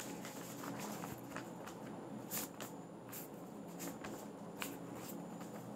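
Quiet room noise picked up by a phone microphone, with a faint steady hum and a few scattered soft clicks.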